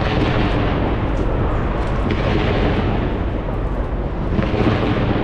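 Large fireworks display: a steady barrage of many overlapping bangs and crackles with no break.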